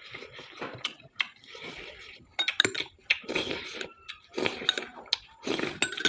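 A metal spoon clinking and scraping against a plate of fried rice while eating, in a run of sharp clicks and short scrapes.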